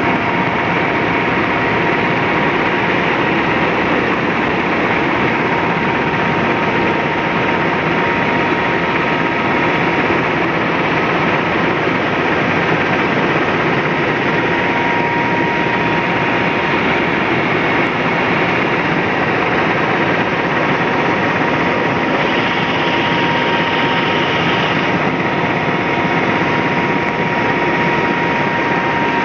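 Helicopter in flight heard from inside the cabin: steady, loud engine and rotor noise with a thin high whine running through it.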